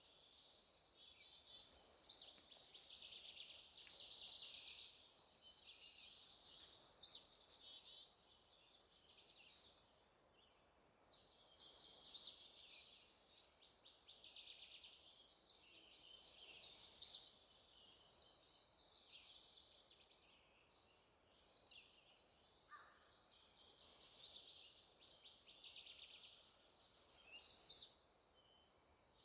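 Songbirds singing: high, trilling song phrases come loudly about every five seconds, with quieter birdsong between them.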